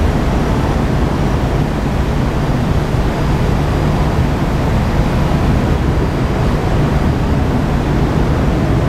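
Steady low rumble of a car ferry's engines with wind and sea noise on deck as the ship comes in to berth.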